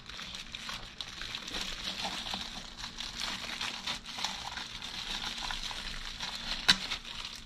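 Crinkly rustling as a neoprene game mat and its packaging are handled and spread out, with one sharp click near the end.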